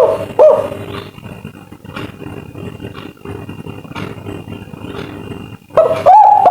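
Spotted dove (tekukur) cooing its 'kuk 3' call in arched, falling coo notes: a short phrase right at the start, a pause of about five seconds with only faint background, then the loud cooing starts again near the end.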